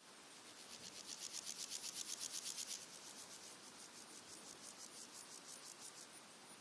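Red-legged grasshoppers singing: fast rasping stridulation pulses, about eight a second, loudest in the first three seconds, then fainter, stopping about six seconds in. Fainter insect ticking and a steady hiss of background insects go on beneath.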